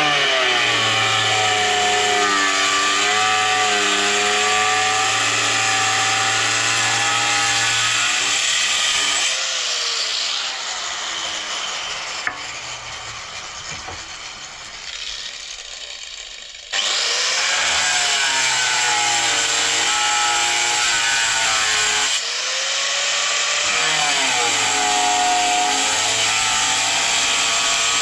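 A power tool running under load, its pitch sagging and recovering as it works, like a saw cutting wood. It runs for about nine seconds, falls away, then comes back in suddenly about seventeen seconds in.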